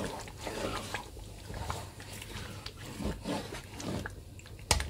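A spatula stirring a pot of thick, simmering rendang gravy: wet squelching and gloopy bubbling with the scrape of the spatula against the pot. The gravy is starting to thicken but is not yet dry. Just before the end, a fast run of sharp ticks starts, louder than the stirring.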